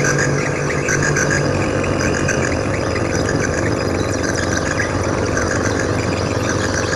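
Hand-built log synthesizer droning: a steady low hum of two tones under a rough, noisy electronic texture. The higher of the two low tones drops out about a second and a half in, leaving one low drone.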